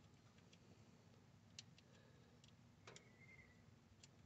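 Near silence with a handful of faint, sharp metal ticks and clicks, small parts handled by hand in an engine bay.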